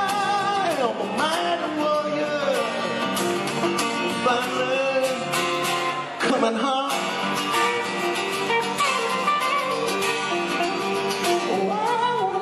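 Live band music: a man singing long held notes that waver and slide in pitch, over strummed acoustic guitar, electric guitar and drums.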